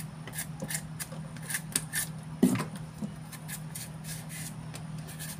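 A blade scraping the skin off a chayote in quick short strokes, with a knock against a wooden cutting board about two and a half seconds in. A low steady hum runs underneath.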